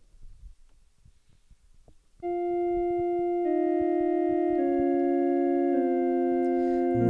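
A church keyboard organ starts about two seconds in, playing slow held chords that change roughly once a second. Before it come faint clicks and knocks.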